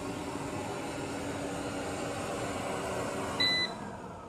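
eufy robot vacuum running on carpet with a steady whirring hum from its fan and brushes. About three and a half seconds in it gives a short electronic beep, and its motor then begins to wind down with a falling whine.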